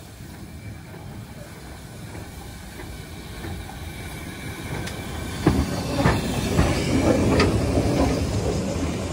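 Austerity 0-6-0 saddle-tank steam locomotive running slowly past on the adjacent track, getting louder as it draws alongside, with hiss and several sharp knocks from about halfway through.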